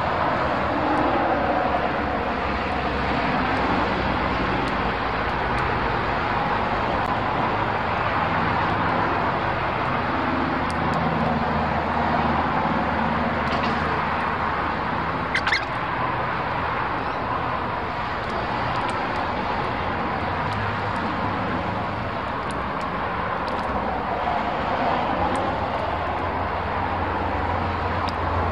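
Steady rushing outdoor background noise with a low hum, and a few short, high bird chirps about halfway through.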